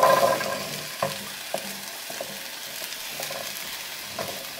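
Diced butternut squash tipped into a hot pan of onions and garlic frying in olive oil: a burst of noise as the cubes land, then steady sizzling while a spatula stirs them, knocking against the pan a few times.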